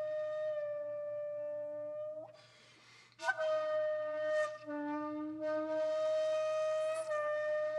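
Background music: a flute-like wind instrument plays long held notes, with a short break about two and a half seconds in.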